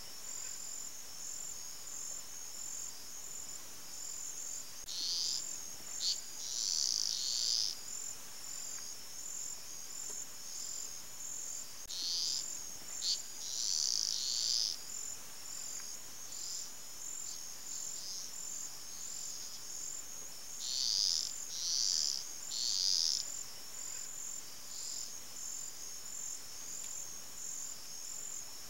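A steady, high-pitched, pulsing chorus of calling animals. Louder clusters of calls rise over it about every eight seconds.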